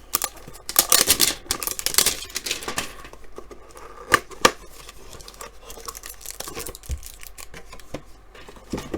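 Cardboard and plastic packaging of a trading-card hanger box being torn and rustled open, with two sharp clicks about four seconds in, then quieter handling.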